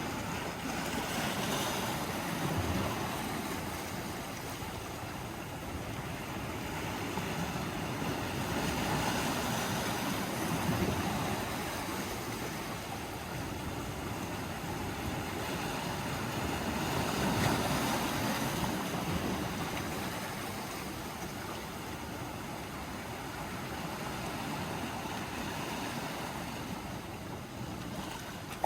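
Sea waves washing onto the shore: a steady rush of surf that swells and eases every several seconds.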